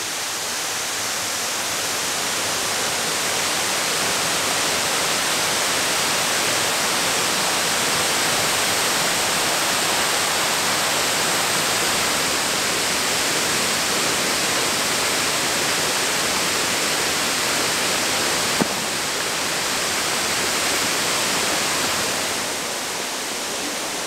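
Waterfall rushing: a steady, even roar of falling water that eases slightly near the end.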